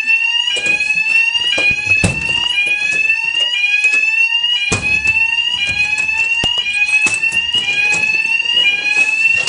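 Building fire alarm sounding: a loud, high tone repeating about once a second, each sweep rising slightly in pitch. A few knocks and handling noises sound over it.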